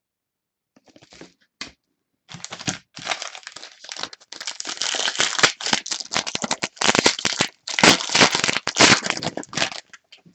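Foil wrapper of a Prizm basketball trading-card pack being torn open and crinkled in the hands, a dense crackling that starts about two seconds in and runs almost to the end.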